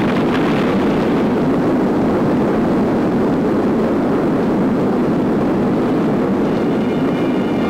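Loud, sustained roar of an atomic bomb airburst: a steady, unbroken rumble that follows the silence after the flash.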